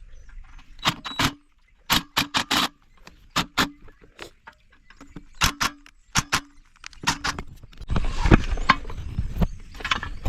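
Scattered sharp metallic clinks and knocks from the floor scrubber's parts and tools being handled, several leaving a short ring. Near the end it turns to a denser scraping and rustling.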